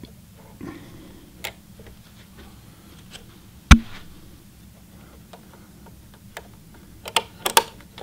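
Scattered sharp clicks and taps from small parts of a Singer Heavy Duty sewing machine's bobbin area being fitted by hand. A single loud click comes about halfway through, and a quick run of clicks near the end as the clear plastic bobbin cover goes on.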